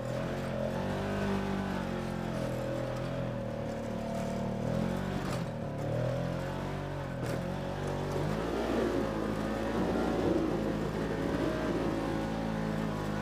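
Polaris RZR side-by-side's engine running under load while climbing a rutted dirt trail, its pitch rising and falling with the throttle. A couple of sharp knocks come about five and seven seconds in.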